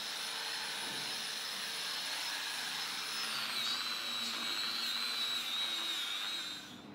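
Electric angle grinder running with a high whine and grinding hiss. About three seconds in, the whine drops in pitch and wavers as the disc bears down on a steel exhaust header. The sound cuts off just before the end.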